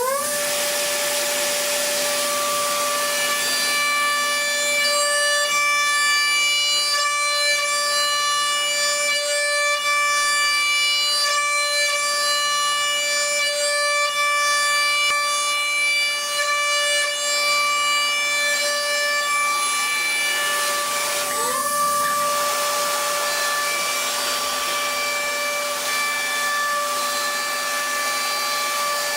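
CNC metal lathe running: a steady whine from the spindle drive over a hiss of cutting. The whine dips and glides back up in pitch about 21 seconds in as the spindle changes speed.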